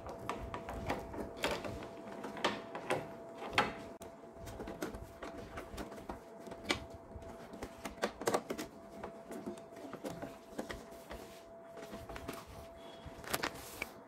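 Irregular plastic clicks, taps and rattles as a microwave door interlock switch and its wiring are handled by hand and pushed back into the plastic door-latch housing. A faint steady tone runs underneath and stops shortly before the end.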